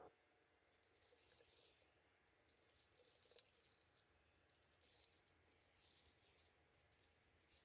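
Near silence, with faint scattered high rustles and hiss.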